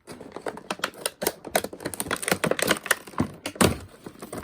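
Hands handling the toy's plastic and cardboard packaging, a dense run of sharp clicks and crackles.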